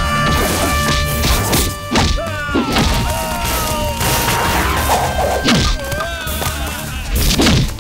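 Film fight-scene soundtrack: a series of heavy punch, hit and crash sound effects over dramatic background music with a steady low bass.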